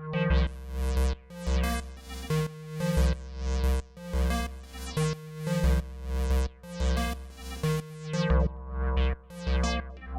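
Electronic acid-techno music from a Roland JU-06A synthesizer and a Roland TR-8 drum machine: synth chord stabs with a sweeping filter over a deep bass pulse that repeats a little more than once a second.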